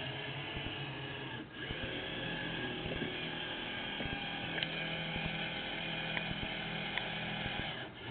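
Electric drive of a 78-inch radio-controlled Gato submarine model running steadily on the surface, a mechanical hum and whine picked up by a diving camera mounted on its deck. It dips out briefly about one and a half seconds in and again near the end, with a few sharp ticks along the way.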